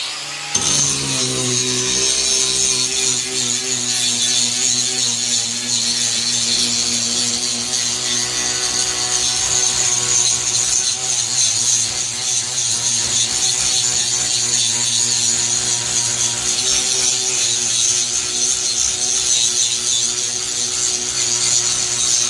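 A handheld electric rotary power tool starts up and runs steadily, a low motor hum under a strong high hiss as it abrades rust off a steel piece to prepare it for welding.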